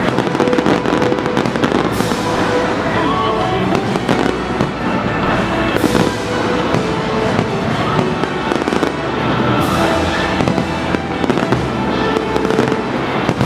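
Fireworks display: many shells bursting with dense crackling and popping, and a few louder bangs about two, six and ten seconds in. Music plays underneath.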